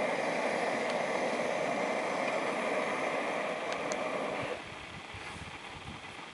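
Backpacking stove burner running with a steady roar, stopping suddenly about four and a half seconds in.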